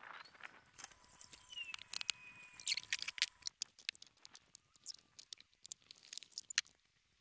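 Scattered light clicks, knocks and rustles of small objects being handled and moved about in a shed, irregular and fairly quiet, with a few faint high whistle-like tones in the first half.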